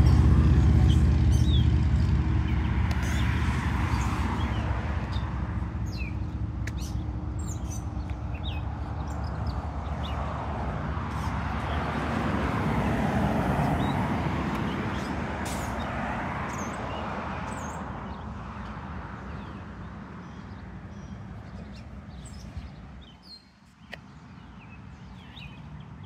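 Road traffic passing on a multi-lane road: a low engine hum that fades over the first several seconds, then cars swelling past and fading, with small birds chirping throughout.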